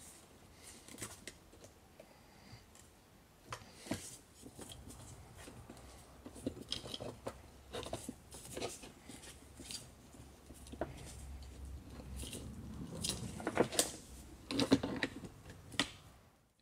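Hands working a car window regulator's metal rail, plastic runner and cables on a wooden bench: scattered small clicks and knocks. Near the end there is a run of louder clicks and clatter as locking pliers are clamped onto the rail.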